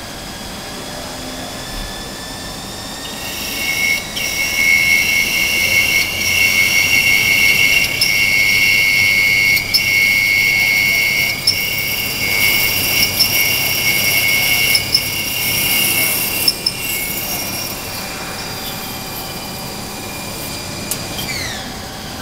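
Haas GT20 CNC lathe turning a metal bar. A high-pitched whine sets in a few seconds in and holds through the cut, broken by a few sharp ticks, then glides down in pitch near the end as the spindle slows.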